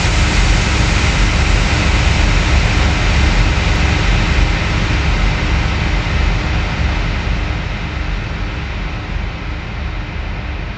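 Loud white-noise wash with a deep rumble underneath, closing out an electronic DJ mix; steady at first, then slowly getting quieter in the second half.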